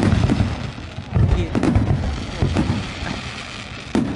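Fireworks display, volleys of comets and shells firing in rapid succession: repeated deep booms mixed with sharper pops and crackles, several a second. The strongest clusters come about a second in and again near the end.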